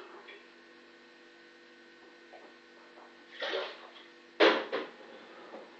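A steady electrical mains hum from a kitchen appliance, which cuts off about four and a half seconds in with a loud, sharp clatter followed quickly by a second one. A brief rush of noise comes a second before.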